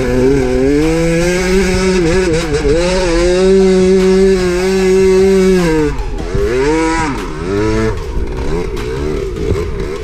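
2003 KTM SX 125 two-stroke single-cylinder engine, heard onboard while riding through sand. The revs climb and are held high for a few seconds. About six seconds in the throttle is rolled off, followed by a few short blips and lower, uneven running.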